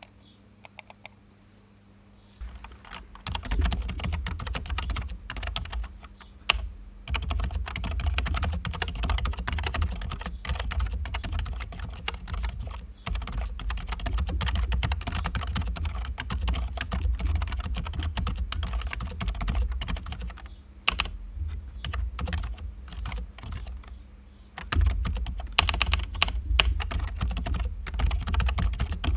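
Keychron K3 low-profile mechanical keyboard with linear white optical switches being typed on while it sits on a desk pad: a steady run of fast keystrokes. The typing starts a few seconds in, breaks off for about three seconds about two-thirds of the way through, then picks up again.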